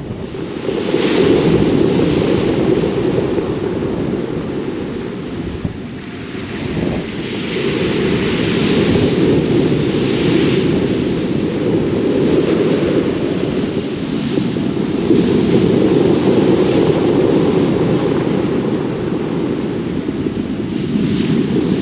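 Sea waves breaking on a beach of large rounded pebbles, the surf swelling and hissing every few seconds, under heavy wind buffeting on the microphone.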